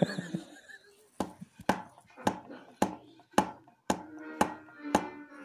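Music with a steady percussive beat, about two beats a second, starting about a second in; pitched notes join the beat about halfway through.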